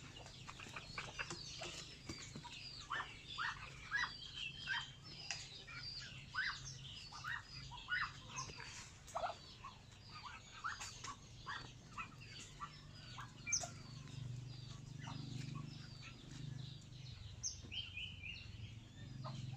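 Farm birds, chickens among them, calling: a dense run of short chirps and peeps with an occasional cluck, over a low steady hum that grows louder later on.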